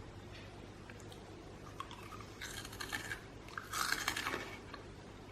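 Someone chewing a crunchy, salty, black-pepper snack cracker, in two bouts of crunching about two and a half and four seconds in.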